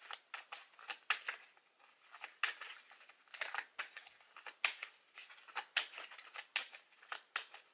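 A deck of tarot cards being shuffled by hand: the card edges flick and slap against each other in a string of quick, uneven clicks.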